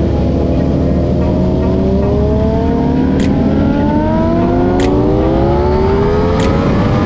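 Ducati Panigale V4 SP's V4 engine pulling hard in first gear, its pitch rising slowly and steadily as the bike gathers speed. Wind rumbles on the microphone underneath.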